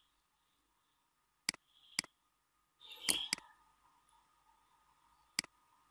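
A few sharp computer mouse clicks at irregular spacing, about five in all, with a close pair a little after the middle, over faint room hiss.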